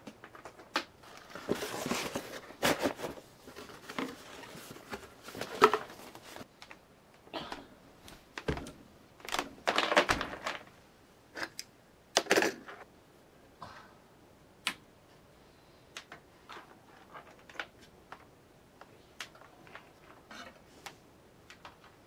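Computer power and riser cables and their plastic connectors being handled and plugged into a motherboard: irregular clicks, rattles and rustling, with the loudest bursts in the first half and sparse single clicks later.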